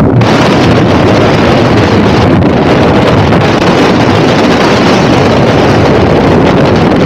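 Wind rushing over a helmet-mounted camera's microphone during parachute canopy flight: a loud, steady roar of wind noise.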